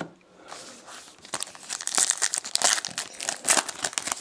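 Foil trading-card pack torn open by hand, its wrapper crinkling: a dense run of sharp crackles that starts softly about half a second in and grows louder from about a second and a half on.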